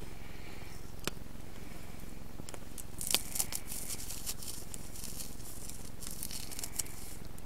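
Dry material crinkling and crackling as it is pushed by hand into a rolled bark tube for a natural water filter, in a run of short, sharp crackles, busiest in the middle.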